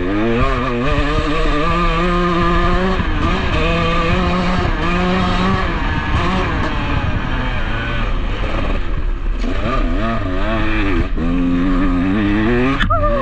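KTM dirt bike engine running under way, its pitch rising and falling again and again as the throttle opens and closes. A sharp knock near the end.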